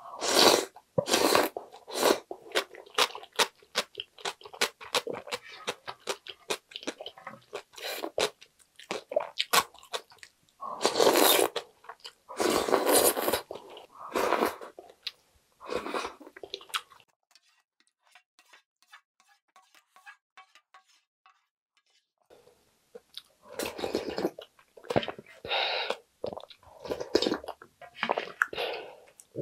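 Close-miked eating sounds: ramyun soup slurped and gulped from a ladle and a bowl, with many wet chewing clicks. There are longer loud slurps a third of the way in, a quieter stretch past the middle, and more sipping and chewing near the end.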